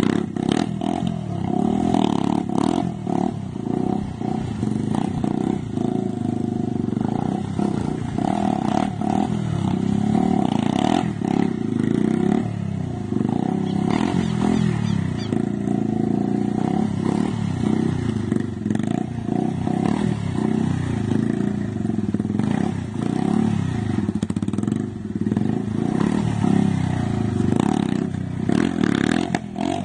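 Stunt motorcycle's engine revving over and over, its pitch rising and falling as the throttle is worked to hold the bike up in wheelies.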